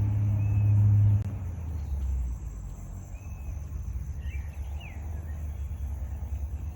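Low engine drone, loudest in the first second, then dropping in pitch and easing to a rumble. Birds chirp several times over it, with a faint steady high insect buzz.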